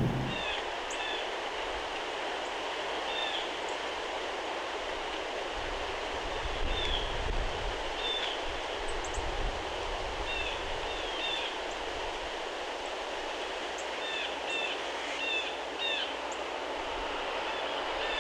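Short, high bird chirps, scattered throughout and sometimes in quick runs of two or three, over a steady outdoor background rumble and hiss.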